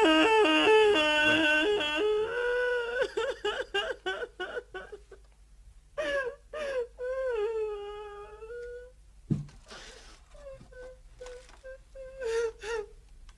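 A woman wailing and sobbing: a loud, high wail at the start that breaks into sobs, another long wail about six seconds in, then short broken sobs near the end. A dull thump about nine seconds in.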